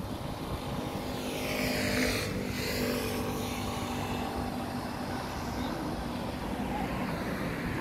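A motor vehicle passes close by on the road. Its engine and tyre noise swells to a peak about two and a half seconds in and then eases off, over wind on the microphone.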